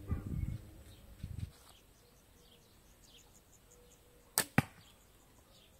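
A shot from a 50-pound recurve bow with plastic limbs: a sharp snap as the string is released, and about a fifth of a second later a second sharp hit as the arrow strikes a dense target of layered carpet and foam.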